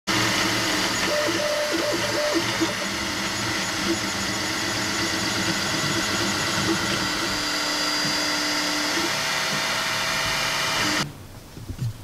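Desktop 3D printer running: a steady whir with motor tones that shift in pitch as the print head moves, cutting off about eleven seconds in.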